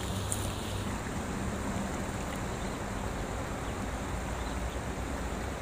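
Steady rushing outdoor noise of wind and flowing river water, with no distinct splash or knock.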